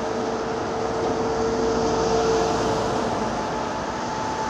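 Hydraulic excavator working: steady diesel engine noise with a hydraulic whine that steps up in pitch about three seconds in.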